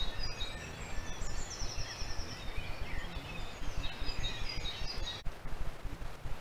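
Several small birds singing and chirping in short whistled notes, with a rapid trill about a second and a half in, over a steady low rumbling noise. The birdsong stops about five seconds in, leaving only the low noise.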